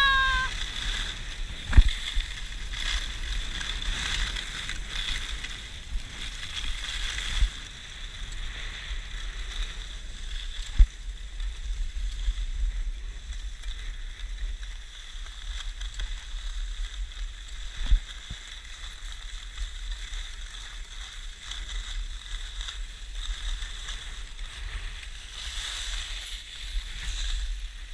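Skis running and scraping over packed snow, with wind rumbling on a GoPro's microphone, and a few sharp knocks about 2, 11 and 18 seconds in.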